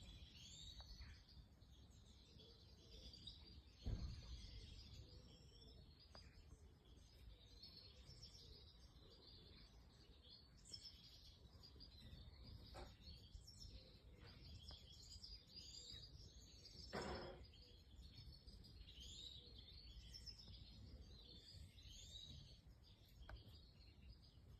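Faint, continuous twittering of European goldfinches in an aviary: many short, quick chirps. A low thump comes about four seconds in, and a short scraping rustle comes later.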